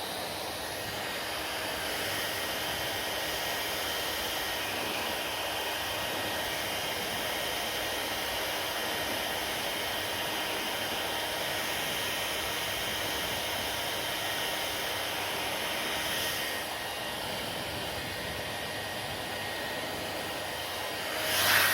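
Hair dryer running steadily: an even rush of blown air with a faint whine through it, growing suddenly louder just before the end.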